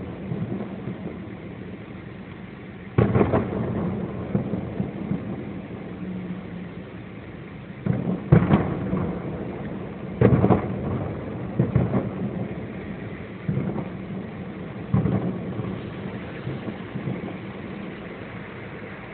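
Aerial fireworks shells bursting, a series of about half a dozen deep booms, each trailing off in a rumbling echo.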